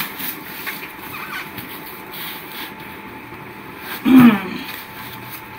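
Faint rustling and small knocks of hiking boots being pulled on and laced over a steady background hum, with one short vocal sound, falling in pitch, about four seconds in.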